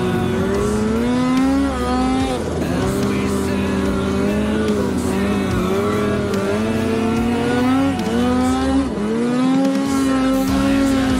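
Snowmobile's two-stroke engine running hard under throttle as the sled climbs through snow. Its note drops and climbs back up several times as the throttle is eased and reapplied.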